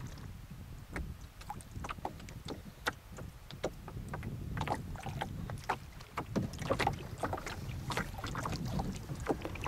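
Canoe moving across choppy lake water: small waves splash and slap irregularly against the hull, over a steady low rumble of wind on the microphone.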